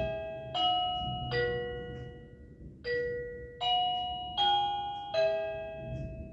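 Wireless doorbell receiver playing one of its 50 selectable chime melodies: about seven struck electronic notes, each ringing out and fading, with a short pause near the middle.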